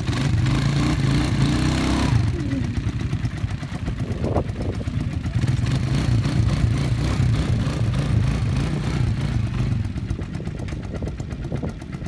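Quad bike (ATV) engine running and being revved as the quad is driven out of soft sand. It runs louder in the first two seconds and again in the middle, and eases off near the end.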